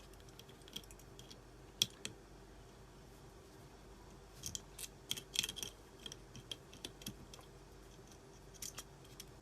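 Faint scattered clicks and scrapes of wire connectors being pulled off an air-conditioner compressor's terminals. There are a couple of sharp ticks about two seconds in and a busier cluster around five seconds.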